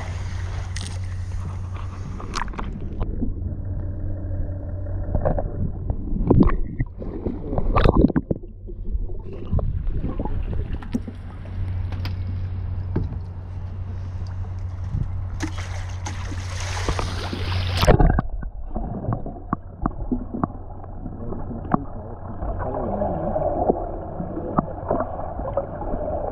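Sea water sloshing and gurgling around a camera dipped at the surface, muffled while it is under water, with a few sharp splashes. For a couple of seconds about two-thirds of the way through the sound turns clear again as the camera comes up, then goes muffled once more.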